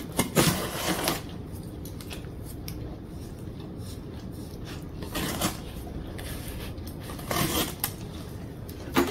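A small knife blade slicing through the packing tape on a cardboard box, heard as short scraping strokes. There is a cluster of strokes in the first second, then more around five seconds in and again about seven and a half seconds in.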